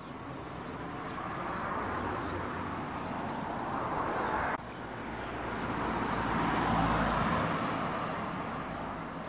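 Road traffic passing: tyre and engine noise swells as a vehicle approaches and is cut off abruptly about halfway through. A second vehicle then approaches and passes, loudest with a low engine hum a couple of seconds later, then fades.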